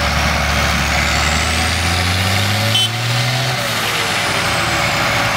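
Tractor engine driving a sugarcane grab loader, running steadily as the loader's boom holds up a bundle of cane. The engine note climbs about two seconds in and drops back around the middle, while a faint high whine rises and falls alongside it.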